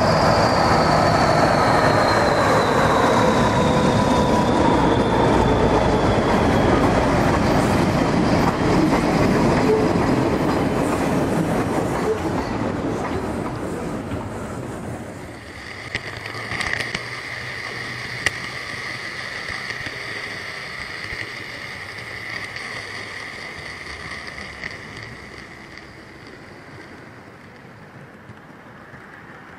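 A train runs past. Its tones slide down in pitch as it goes by and the sound fades away, leaving a quieter rolling sound with a steady high ring.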